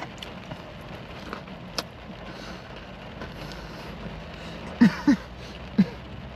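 Steady rain on a car's roof and windows, heard from inside the cabin, with a man chewing and giving a few short 'mm' hums of enjoyment about five seconds in. A single sharp click comes a little under two seconds in.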